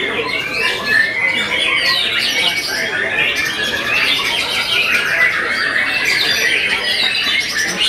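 Several caged white-rumped shamas (murai batu) singing at once: a dense, continuous tangle of quick whistles, trills and chirps with no pause.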